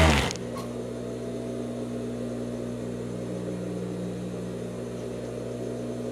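Industrial overlock sewing machine: a burst of stitching cuts off right at the start. After that the machine's motor keeps running with a steady hum while no fabric is being fed.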